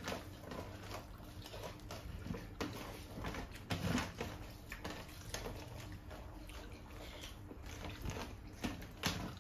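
Faint sounds of two people eating rice and chicken curry with their hands from metal platters: irregular soft clicks and wet mixing noises as fingers work the rice into the gravy. A low steady hum sits underneath.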